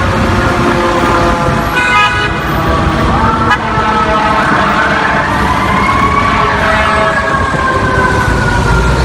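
Fire truck responding: air horn blasts, and a siren that rises to a peak about six seconds in and then winds slowly down, over the rumble of the truck's engine.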